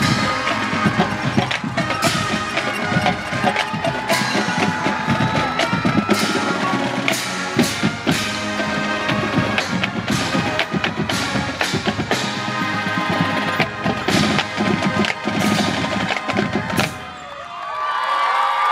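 High school marching band playing, with a busy drumline under held brass notes. The piece ends about seventeen seconds in, and crowd cheering and applause rise near the end.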